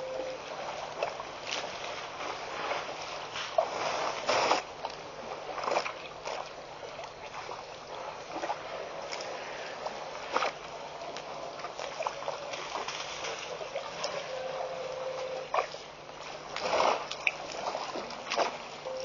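Water splashing and sloshing as African elephants drink at a waterhole, with irregular louder splashes every few seconds over a steady hiss.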